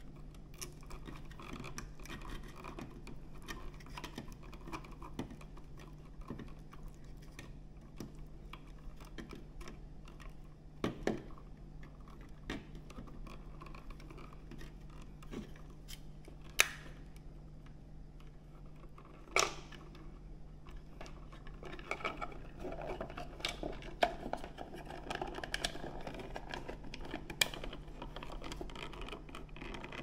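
Small clicks, scratches and rubbing as electrical wires and a three-way wall switch are handled and pushed into a wall electrical box, with several sharper clicks spread through.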